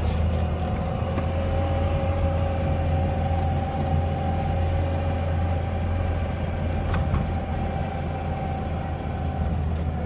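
Lada Niva 1.7's four-cylinder engine running at a steady speed on the road, heard from inside the cabin: a low drone with road noise and a steady whine on top.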